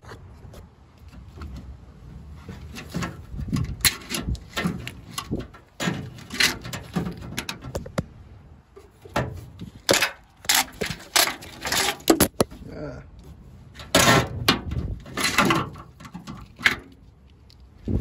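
Hands working a truck's tail light wiring harness and its plastic clips: irregular clicks, knocks and rustles, busiest in the second half.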